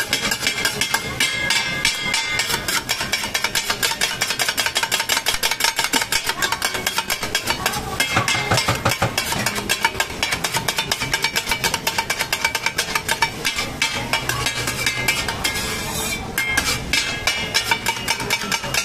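Two metal spatulas scraping and clacking rapidly against a flat steel griddle as rice noodles are stir-fried, a fast continuous clatter.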